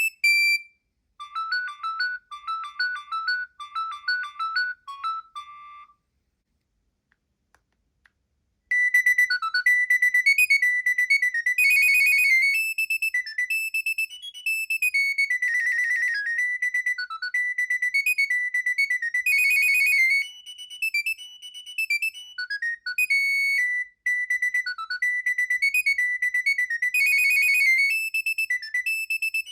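Nokia 7250i's preloaded polyphonic ringtones played one after another: a short, quick tune of about five seconds near the start, a pause of a couple of seconds, then a longer, louder melody from about nine seconds in.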